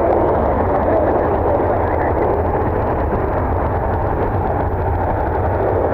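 Strong wind blowing across the microphone: a loud, steady rushing and rumbling noise that does not let up.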